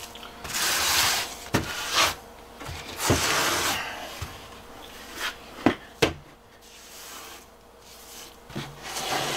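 Rubber grout float scraping wet grout across stone tiles in sweeping strokes, with a few sharp knocks among them. The strokes are loudest in the first four seconds and grow quieter after that.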